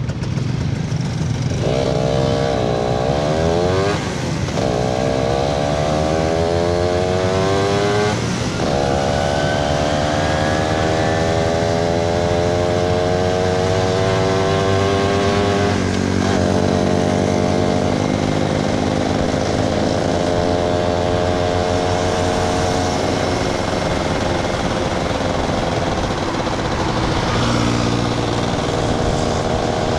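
Yamaha SS motorcycle engine pulling away and accelerating through the gears. Its note rises in pitch and drops at three upshifts, about 4, 8 and 16 seconds in, each gear pulling longer than the last. It then settles into a steady cruise, with road and wind noise underneath.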